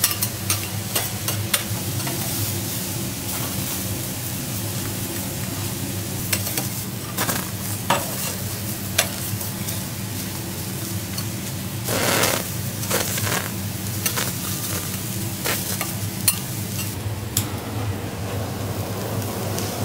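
Snow crab legs and crab meat sizzling on a steel teppanyaki griddle, a steady hiss broken by many sharp clicks and scrapes of metal spatulas on the plate.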